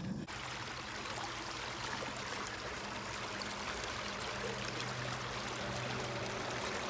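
Shallow woodland stream running past a fallen log and spilling over a small riffle: a steady rush of flowing water.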